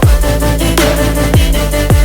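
Electronic background music with a heavy beat: deep bass hits that drop in pitch, over sustained low bass notes, with no vocals.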